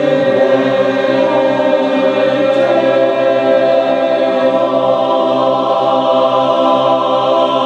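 Barbershop chorus singing unaccompanied in a warm-up scale exercise, holding one long chord that shifts to a new chord about three seconds in and is then sustained.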